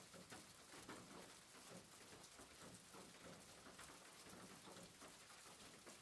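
Faint, steady rain: an even hiss of falling drops, with many small drop impacts throughout.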